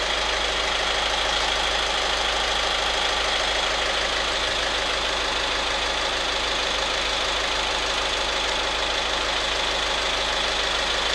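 Steady mechanical drone of a machine running continuously, with a thin high whine on top and no change in level.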